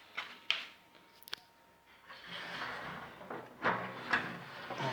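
Handling noise from working a drive belt inside a washing machine: a few sharp clicks near the start, then rubbing and scraping with two louder knocks near the end.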